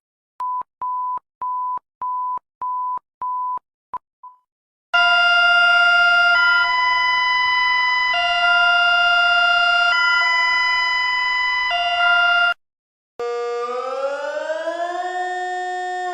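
Emergency alert alarm tones: a run of short beeps at one pitch, then a loud chord of several steady tones that shifts pitch every second or two and cuts off, and after a brief gap a siren that starts and glides up in pitch.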